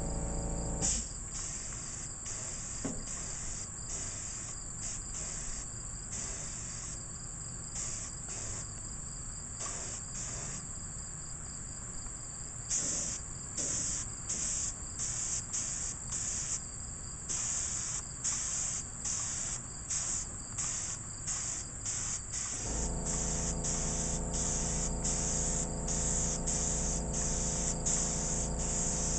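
Gravity-feed paint spray gun hissing in repeated bursts of varying length as the trigger is pulled and released. A steady high insect chirping runs underneath. A low machine hum, the air compressor's motor, stops about a second in and starts again near the end.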